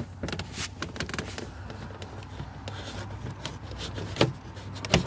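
Scattered light clicks, taps and rattles of a door handle release cable being hooked up on a pickup truck's interior door panel, over a steady low hum.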